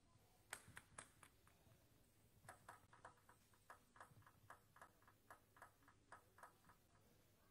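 Celluloid-type table tennis ball bounced repeatedly on the table by hand before a serve: a run of light ticks about four a second, after a few single louder clicks in the first second or so.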